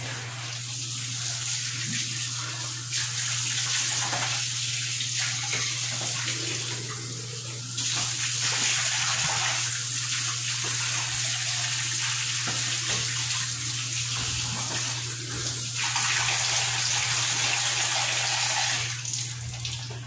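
Tap water running into a laundry sink and splashing over a plastic part rinsed under the stream. The splashing changes a few times as the piece is moved in and out of the flow, and is fullest near the end.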